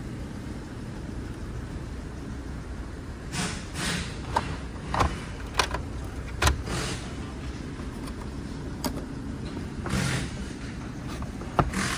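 Hands handling the pickup cab's plastic interior trim, the dashboard around the glove box and the sun visor: a run of sharp clicks and knocks with short rustles, starting a few seconds in. Under it is a steady low rumble.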